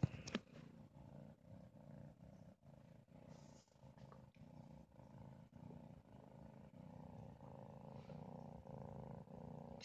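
Orange-and-white kitten purring faintly and steadily close to the microphone. There are a few light clicks right at the start.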